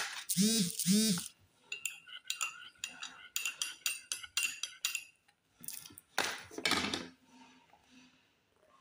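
A teaspoon stirring in a ceramic cup, clinking many times against its sides, after two short hummed sounds from pursed lips. Near the end comes a loud noisy sip from the cup.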